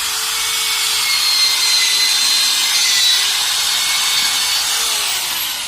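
Bosch GBM 13-2 550 W electric rotary drill boring a hole through wood: a steady motor whine under the loud rasping of the bit cutting the wood, easing off near the end as the bit breaks through.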